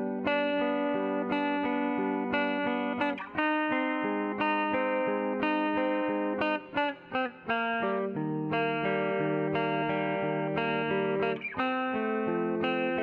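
Background music: a plucked guitar playing a melody over sustained chords.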